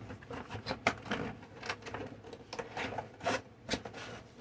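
A cardboard product box and its paper packing handled and moved about on a table: irregular rustling and scraping, with a few sharper taps.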